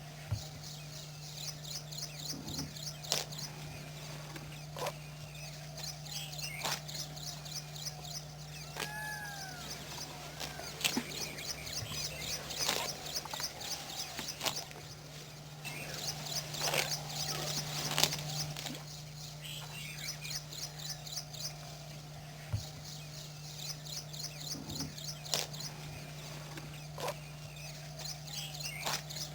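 Birds calling: many short sharp chips, a few arched whistled notes, and a fast high-pitched rattling trill that comes and goes. A steady low hum runs underneath.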